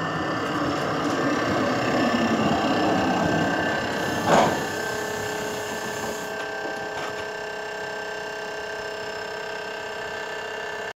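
Model tram running on a model railway track, its small electric motor whirring steadily. There is a short louder knock about four seconds in, and the sound gets a little quieter after it.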